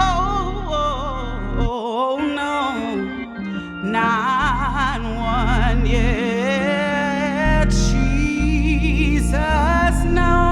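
Hammond-style gospel organ, a software emulation sampled from an A100, playing sustained chords over a deep bass line. A female singer holds wavering notes and melismatic runs over it without clear words. The bass drops out briefly around two seconds in.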